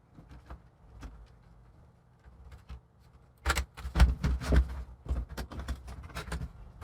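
Thin plastic laptop case halves of a Lenovo G50-70 being pried apart by hand: a few faint clicks, then from about three and a half seconds a quick run of sharp plastic clicks and knocks as the snap-fit latches let go.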